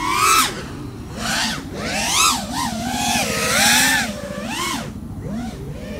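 Brushless motors and propellers of a 5-inch FPV freestyle quadcopter, recorded on its onboard GoPro. The whine rises and falls in pitch with the throttle, with loud punches right at the start, about two seconds in, and again between three and four seconds.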